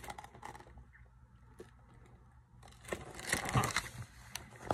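Quiet room tone, then from about three seconds in a picture book is handled and put down: paper pages rustling, with a few light knocks.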